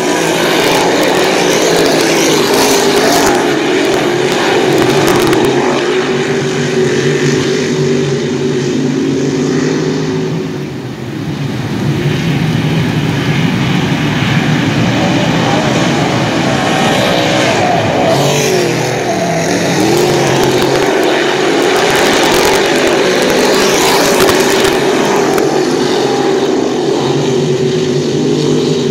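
A field of dirt modified race cars running their V8 engines at racing speed on a dirt oval, loud throughout. The engine notes rise and fall as cars pass, with a short lull about ten seconds in.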